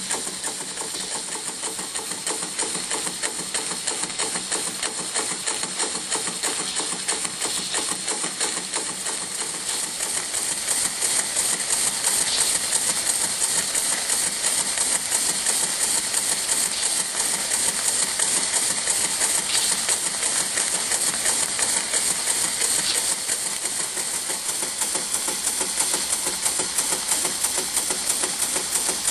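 A 1971 Bio-Fiz educational model steam engine running at speed: a steady, rapid beat from its piston and valve gear with a hiss of steam, getting louder about ten seconds in.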